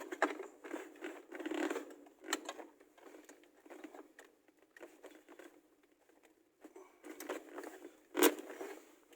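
Plastic interior trim on a Renault Kaptur's centre console being worked loose by hand: scattered scrapes, rustles and small clicks, with a sharper knock about eight seconds in.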